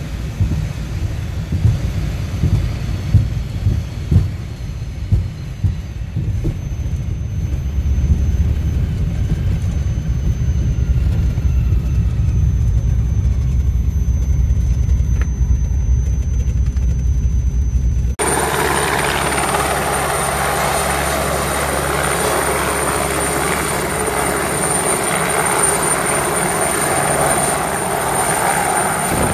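Cabin sound of a Beech 18's twin radial engines as it rolls over a grass strip: a deep drone with bumps and thumps from the rough ground in the first few seconds. About 18 seconds in it cuts abruptly to an Alouette helicopter hovering, its turbine giving a steady high whine over the rotor noise.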